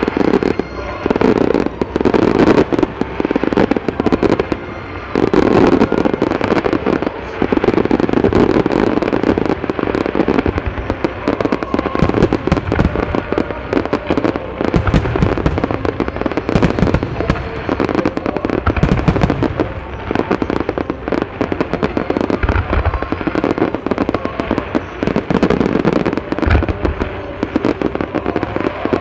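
Starmine fireworks barrage: a rapid, continuous string of shell launches and bursts with crackling, and deeper booms mixed in now and then in the second half.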